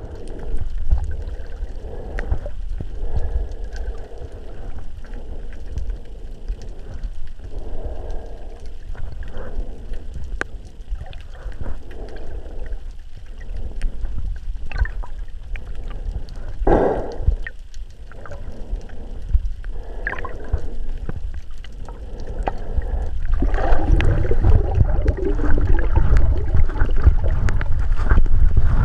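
Underwater sound heard through a GoPro's waterproof housing: a low rumble of moving water with irregular swishes from a freediver's arm strokes, growing louder about three-quarters of the way in.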